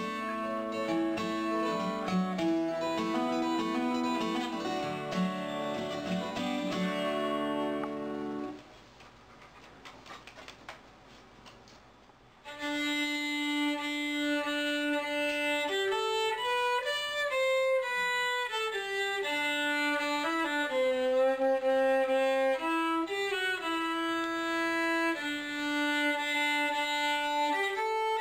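Acoustic guitar played in chords for about eight seconds, then cut off. After a few seconds of faint background noise with a few clicks, an unaccompanied fiddle plays a bowed tune of held and stepping notes.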